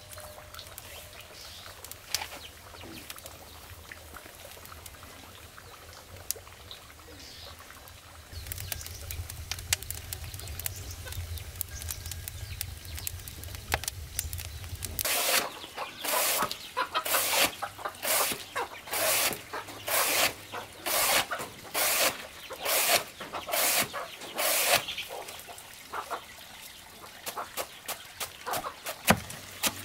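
A low steady hum with faint ticks, cut off abruptly about halfway. Then a steady run of cutting strokes, about one and a half a second, from a machete slicing a soft plant stalk into shreds, with sharper chops near the end.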